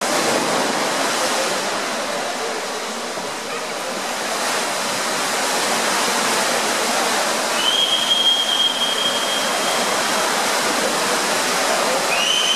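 Steady splashing of monofin swimmers racing in an indoor pool, mixed with echoing crowd noise in the hall. A long, high whistle sounds about eight seconds in and again near the end.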